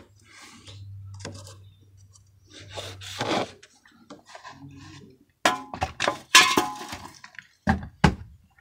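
Knocks and clinks of a blue plastic water line being shifted and pushed between the floor joists of a crawlspace, with a cluster of sharp clatters in the second half. A low steady hum sounds in the first few seconds.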